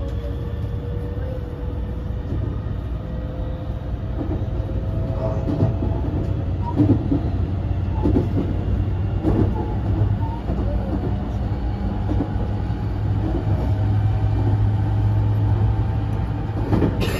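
Onboard running noise in a JR West 223 series 2000 motor car under way: a steady rumble of wheels on rail. Over it is a faint whine from the Toshiba IGBT VVVF inverter-driven traction motors, rising slightly in pitch over the first couple of seconds, and there are occasional knocks.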